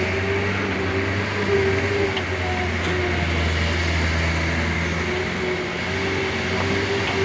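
Loaded truck's engine running steadily while the truck drives over a rough, rutted dirt road, heard from the open cargo bed as a constant low drone with a wavering hum above it.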